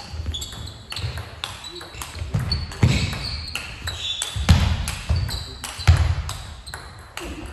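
Table tennis rally: the ball clicks sharply off the rackets and table again and again, with heavy thuds of footwork and short shoe squeaks on the sports hall floor.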